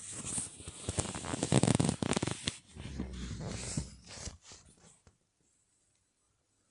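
A person snoring: a loud, rattling, fluttering snore lasting about four and a half seconds that fades out, then a second and a half of silence.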